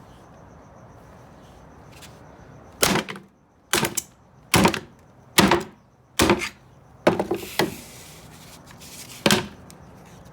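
A hammer repeatedly smashing aluminium soda cans: about eight sharp crunching blows, roughly one a second, starting about three seconds in, some with a quick second crunch.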